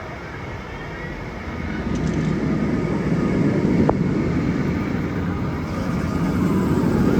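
Launched roller coaster train running the track on an empty test run: a rumble that builds about two seconds in, eases a little and swells again near the end.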